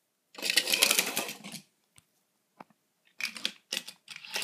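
Small toy cars handled on a hard surface: about a second of rapid clattering clicks, two single clicks, then more short bursts of clatter near the end.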